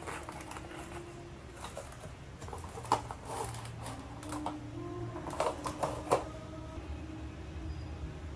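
Handling sounds as a pleated paper lampshade is fitted onto a lamp's wire frame: irregular clicks, taps and paper rustling, with a few sharper clicks about three seconds in and again between five and six seconds in.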